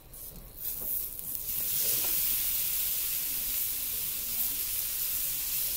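Eggplant pieces sizzling as they go into hot oil in a shallow frying pan: the sizzle swells quickly over the first second or so as the pieces hit the oil, then holds as a steady loud hiss.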